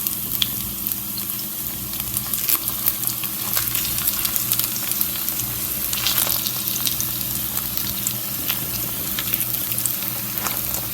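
Pancake batter frying in hot vegetable oil in a pan: a steady sizzle with scattered small crackles and pops.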